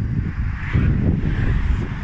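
Wind buffeting the microphone: a loud, dense low rumble with some hiss on top, easing off near the end.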